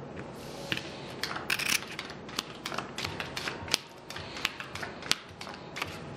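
Casino chips clicking against each other as they are handled in a stack, a run of sharp, irregular clicks several times a second, with playing cards being dealt onto the felt.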